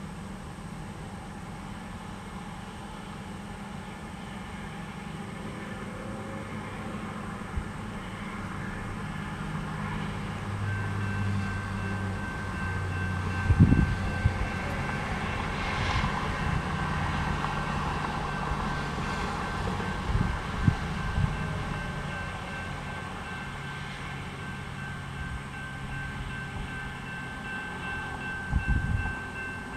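A grade-crossing signal bell starts ringing about a third of the way in and keeps ringing, over the low rumble of an approaching diesel freight train, which grows louder. A few brief knocks come through.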